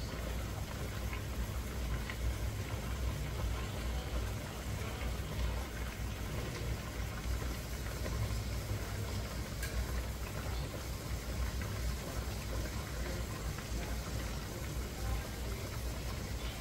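Pressure canner under pressure on the stove: a steady low rumble of water boiling inside, with a few faint ticks.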